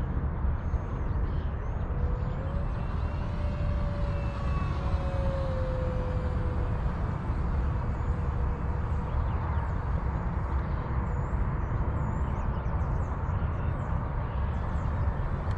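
Wind rumbling on the microphone, with the faint whine of an electric RC model Cessna 182's motor and propeller in flight. For a few seconds the whine drifts up in pitch and then down as the plane passes.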